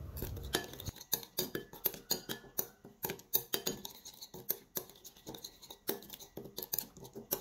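Metal spoon stirring an oily chili sauce in a ceramic bowl, clinking and scraping against the bowl in quick, irregular light strokes.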